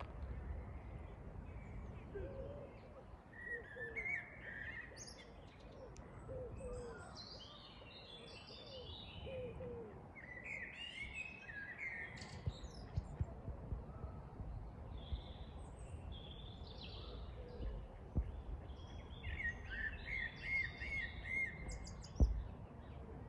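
Several wild birds singing and chirping in overlapping phrases, with a run of lower, repeated call notes in the first half, over a low background rumble. A single sharp knock sounds near the end.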